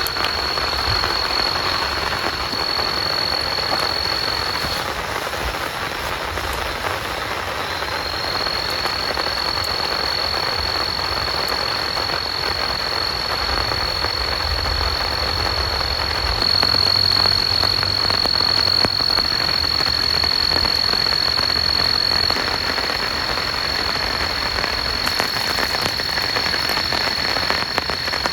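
Heavy rain falling in a steady hiss. Through it runs a continuous high-pitched trill that breaks off about five seconds in and comes back about three seconds later.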